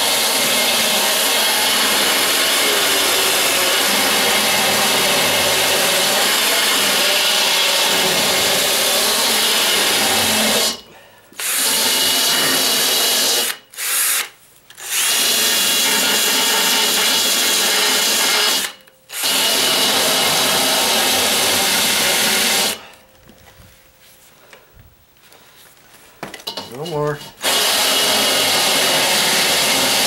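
Ryobi cordless drill spinning a rasp bit, grinding out the edge of the deadbolt strike opening in a security screen door frame to clear the bolt. It runs in long stretches with three brief stops, then a pause of about four seconds before it starts again near the end.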